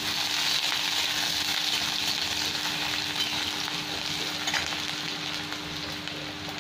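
Freshly added chopped onion sizzling in hot oil in a kadai, stirred with a metal spatula that now and then scrapes and taps the pan. The sizzle eases off slowly.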